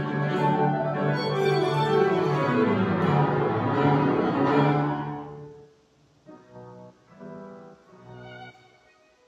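Violin and keyboard duo playing live, the church's reverberation audible. A full, loud passage dies away about five and a half seconds in, followed by quieter, separate phrases with short pauses between them.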